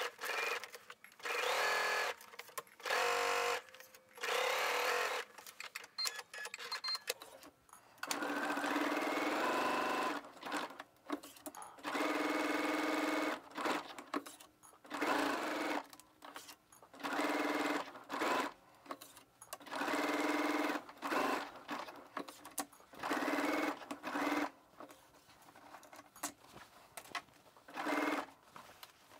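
Computerized sewing machine stitching a seam through pinned fabric, running in short bursts of a second or two and stopping and starting about a dozen times as the fabric is guided along.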